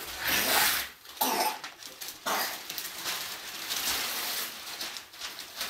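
Gift wrapping paper being torn and rustled off a large present, in a couple of long rips and then steady rustling.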